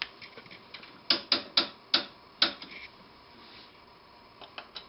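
Light clicks and ticks of a small screwdriver turning a trimmer potentiometer on a circuit board to change a 555 timer's frequency. There is a run of sharp clicks, the five loudest between about one and two and a half seconds in, with fainter ticks around them and a few more near the end.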